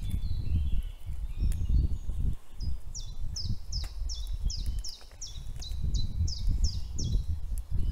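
A songbird repeating the same short note, each one sliding downward, about three times a second for some four seconds, starting about two and a half seconds in. Underneath runs a low, uneven rumble with a few faint clicks.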